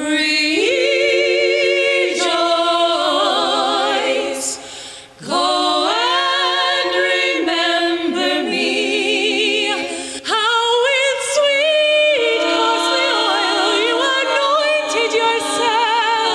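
Women's vocal quartet singing a cappella in close harmony, several voices holding notes with vibrato. The voices drop away briefly about five seconds in and come back in with upward slides, with another entry around ten seconds.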